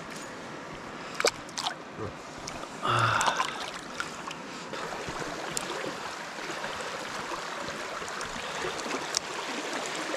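Shallow creek water running steadily over a riffle. A few sharp clicks and a brief louder noise stand out in the first few seconds.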